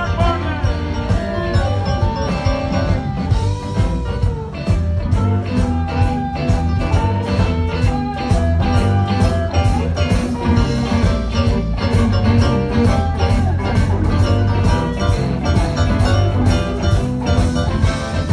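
Live blues band playing an instrumental passage: an electric guitar plays a lead line with bending notes over electric bass and drums.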